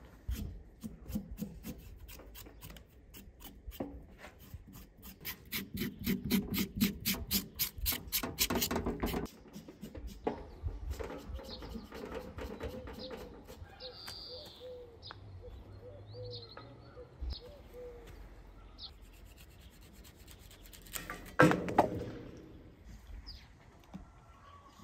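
Rhythmic scraping at a raw cow's leg, about four strokes a second, growing louder and stopping about nine seconds in. A few high chirps follow, and a brief loud sound comes near the end.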